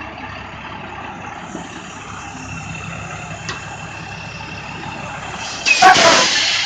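Transit bus's diesel engine running steadily with a faint whine, then about six seconds in a loud, short hiss of air venting from its air brake system.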